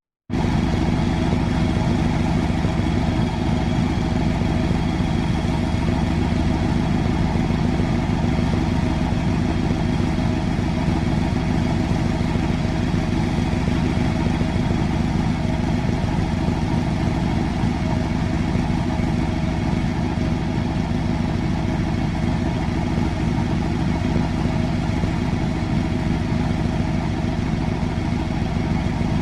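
Large engine idling steadily, a low even rumble that holds the same pitch and loudness throughout.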